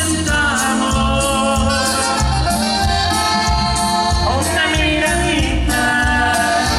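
Live Mexican regional band music: an instrumental passage with a sustained melodic lead over a steady pulsing bass and drum beat.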